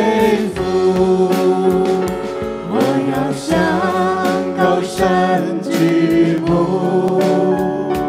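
Worship song: singing voices over sustained instrumental accompaniment.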